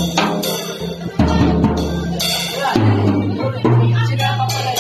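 A small child playing a drum kit, hitting drums and cymbals over music with held low notes that change every second or so.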